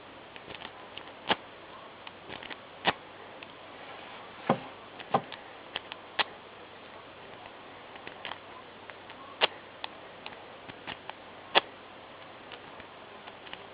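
Lock-picking rake clicking against the pin stacks of a Best padlock as it is raked out of the keyway again and again under light tension, giving irregular sharp clicks with fainter ticks between. The pins have not yet set to the control shear line, so the lock stays shut.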